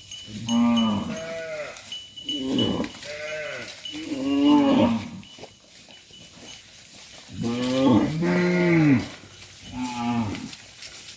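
Cattle mooing: about six separate calls, each bending in pitch, with the longest and loudest call about eight seconds in.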